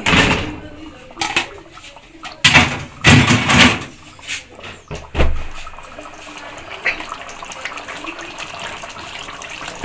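Raw chicken livers and hearts tipped from a plastic colander into a pan of wet tomato-onion masala, landing in a run of wet splashes and knocks over the first five seconds with one low thud. After that, a steadier, quieter noise from the pan.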